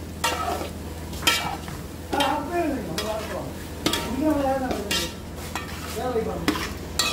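Metal spatula scraping and knocking against a large aluminium pot as shredded tender jackfruit with onion and curry leaves is stirred over the heat, in separate strokes about a second apart, with a light frying sizzle underneath.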